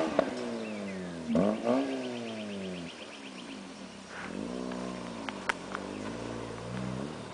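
Mazda RX-8's rotary engine heard from outside the car as it drives on dirt: the revs fall away, two quick throttle blips follow, then the revs rise and fall a few more times. A few sharp clicks come in the second half.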